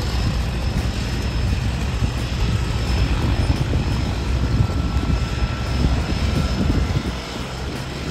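A single-engine floatplane's engine and propeller running steadily at power as it speeds across the water on its floats at the start of a take-off run, with a strong low rumble.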